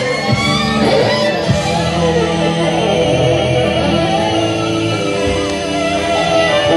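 Violin played live over a recorded backing track with guitar from a small speaker, the violin holding notes with vibrato.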